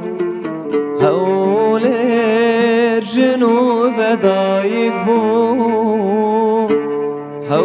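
Live music: a man singing long, wavering notes to oud and bowed cello accompaniment.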